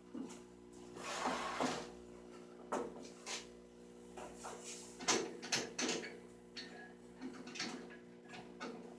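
Table saw guide fence being slid along its rail and set: a scraping slide about a second in, then a run of clicks and clunks, over a low steady hum.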